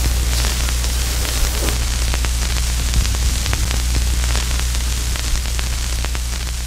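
Loud, steady static hiss over a low electrical hum, with scattered crackles: a static-noise effect under the opening title.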